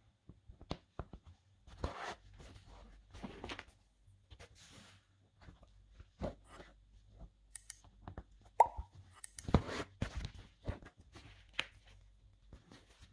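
Hand saddle-stitching leather: needles pushed through punched stitching holes and thread drawn tight through the leather with short rasps, among small clicks and taps, with one sharper knock about two-thirds of the way through.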